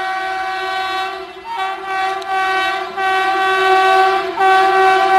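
Indian Railways train horn sounding in long blasts with short breaks between them, getting louder toward the end.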